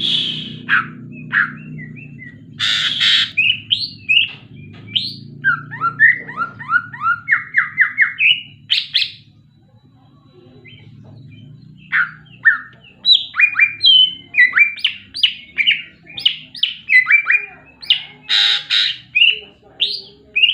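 Green leafbird (cucak hijau) singing a varied song filled with mimicked phrases: rapid runs of short whistled notes broken by harsh, buzzy bursts, with a pause of about two seconds midway.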